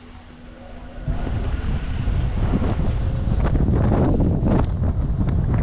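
Wind buffeting the microphone, a low rumble that picks up about a second in and carries on in uneven gusts.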